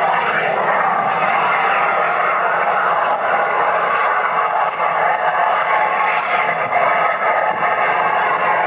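Recorded gas-flare noise played back loud to demonstrate the noise of fracking flares: a steady, dense rushing noise without breaks.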